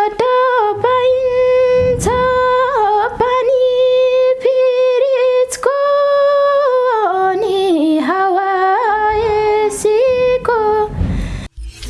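A woman singing unaccompanied: a slow melody in a high voice, with long held notes sliding between pitches. The singing breaks off shortly before the end, followed by a brief low rumble.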